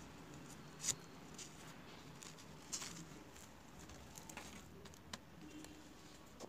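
Faint handling sounds of a belt and its buckle being fastened: rustling with scattered small clicks, two sharper clicks about one and three seconds in.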